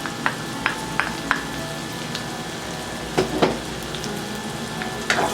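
Onion and garlic sizzling as they fry in rendered chicken fat in a pan. Sharp clicks of a utensil stirring against the pan come several times, a cluster in the first second or so and more about three seconds in.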